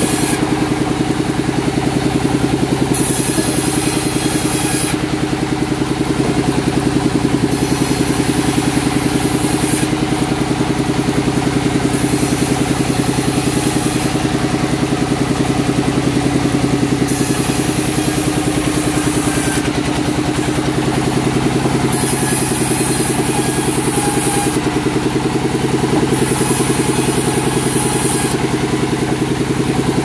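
Sawmill machinery running steadily with an engine-like drone, while a high hiss comes and goes in stretches of about two seconds.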